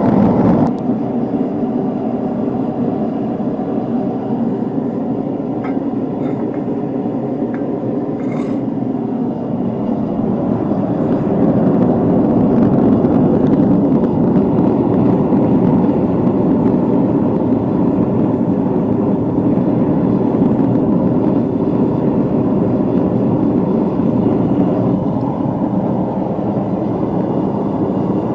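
Gas forge burner running with a steady, loud rushing roar of flame, with a few faint ticks about six to eight seconds in.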